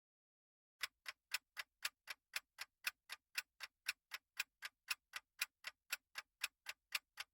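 Clock-style ticking of a countdown-timer sound effect, about four ticks a second, alternating louder and softer, starting about a second in.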